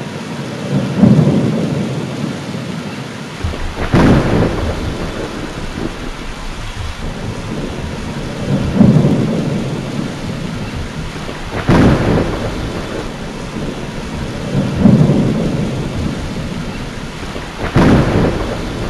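Thunderstorm with steady rain. Thunder comes about every three seconds, deep rumbles alternating with sharper cracks.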